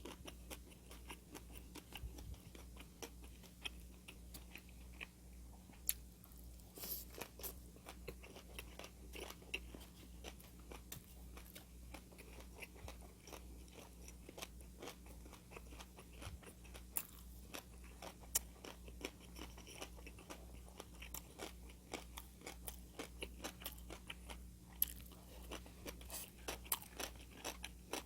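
A person chewing and crunching food close to the microphone: a steady run of crisp bites and chews with a few sharper crunches, over a faint steady low hum.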